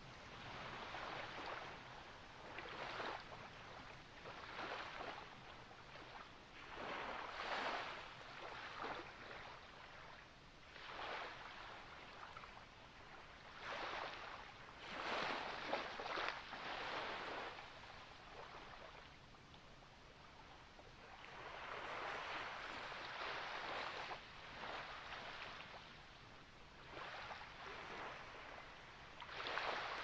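Small waves lapping and washing, in uneven surges of splashing every second or two, with bigger swells several seconds apart.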